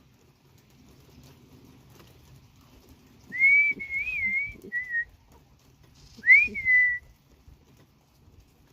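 A person whistling to call cats in: a wavering whistle a little after three seconds in, then a short note, and about six seconds in a whistle that rises and then falls.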